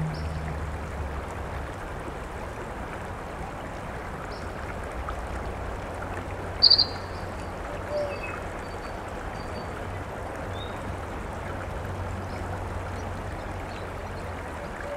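Creek water running over rocks, a steady rush, with a short, sharp, high-pitched chirp about six and a half seconds in that is the loudest sound, and a few faint high chips here and there.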